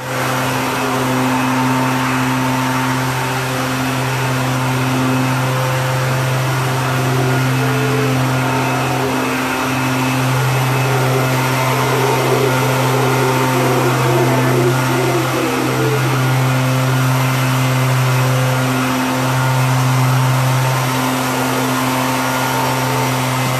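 Mantled howler monkeys roaring in a long, low, droning chorus that breaks off briefly every few seconds.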